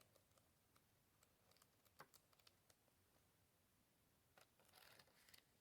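Near silence with a few faint clicks and a soft rustle near the end: paper pages of a planner being leafed through.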